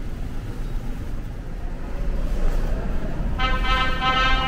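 Low rumble in an underground subway station. A little over three seconds in, a loud pitched chime begins on the platform: the tone signalling an approaching train.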